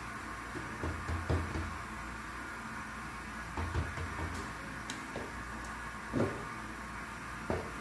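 Pizza dough being pressed out by hand on a wooden peel: a few soft knocks and thumps, the loudest a little after six seconds in, over a steady hiss.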